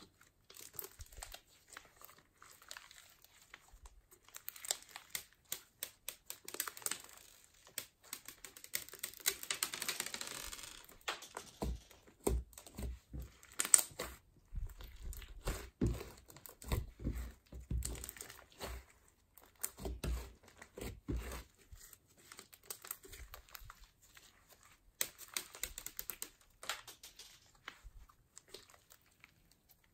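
Hands squeezing, stretching and kneading a lump of silver glitter slime: an irregular stream of sticky clicks and crackly pops, with a longer crackling stretch about ten seconds in.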